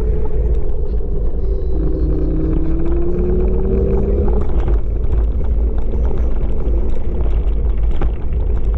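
Wind buffeting the camera microphone on a Kaabo Wolf King GT electric scooter riding at speed. The scooter's electric motor whine rises in pitch from about two seconds in as it speeds up, then settles back into the wind noise.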